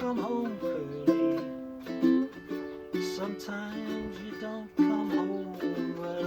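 Acoustic plucked-string instrumental: a picked melody over strummed chords, with distinct note attacks that ring and fade, and no singing.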